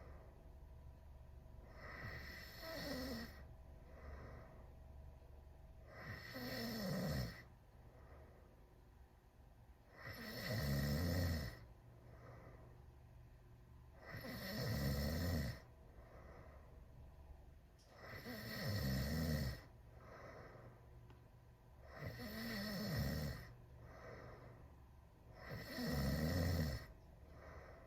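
A teenager snoring with mouth wide open. There is a snore about every four seconds, seven in all, each lasting a second or so and sliding down in pitch, with quiet breathing in between.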